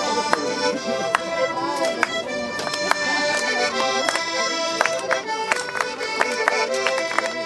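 Accordion playing a Circassian folk dance tune, with sharp claps marking the beat.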